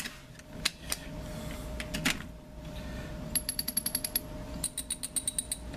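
Rebuilt Barlow 27 two-speed sailboat winch being turned with a winch handle. A few single knocks come first. From about three seconds in there are two runs of quick, ringing pawl clicks, about ten a second, as it ratchets, sounding as a healthy winch should.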